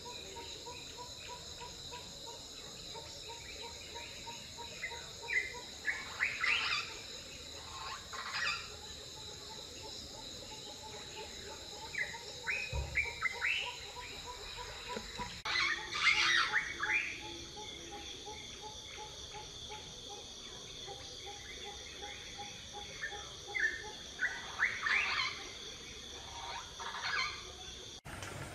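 Birds chirping in short bursts every few seconds over a steady high insect drone, with a soft repeated note about four times a second beneath.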